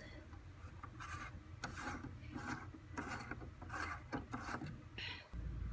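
A series of about ten short, scraping rubs as something is pulled and removed by hand during the lamp unboxing. A steady low hum takes over near the end.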